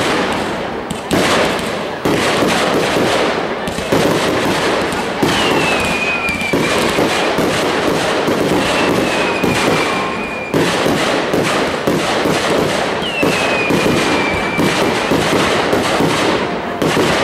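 Fireworks display: continuous dense banging and crackling from bursting shells and sparking fountains. Three whistles, each falling slightly in pitch, come through at about five, nine and thirteen seconds in.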